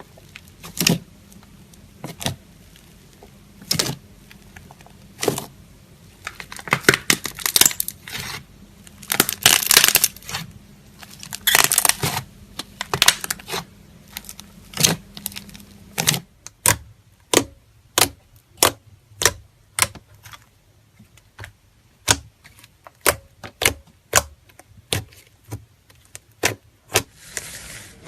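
Slime being played with: sharp pops and crackles, bunched into crackly runs in the first half, then a regular series of single clicking pops about two a second.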